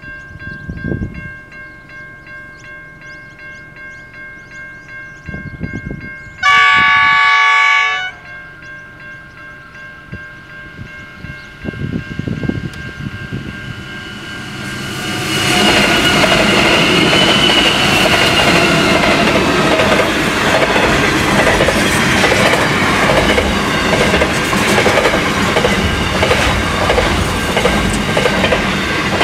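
Pacific National NR class diesel-electric locomotives hauling an intermodal freight train. About six seconds in, while the train is still distant, the horn sounds once for about a second and a half. About halfway through the lead locomotives draw near and pass with loud engine noise, giving way to the steady rumble and clickety-clack of container wagons rolling by.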